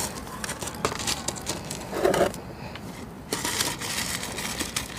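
Small gravel rattling and trickling out of a plastic scoop into a potted succulent planting, with scattered crunchy clicks as the stones settle around the plants. There is a brief lull a little past the middle.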